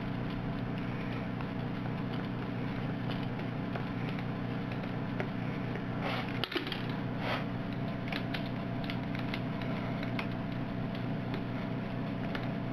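Light clicking and ticking of a worm-drive hose clamp being tightened around two capacitors, with a couple of small knocks about halfway through, over a steady low hum.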